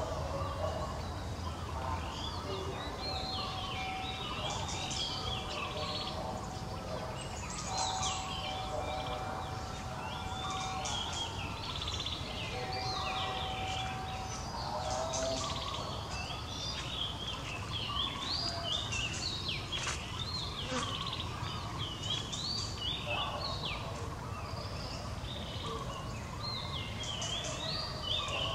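Outdoor ambience of small birds chirping again and again over a steady low background rumble, with a plain held tone sounding a few times in the first half.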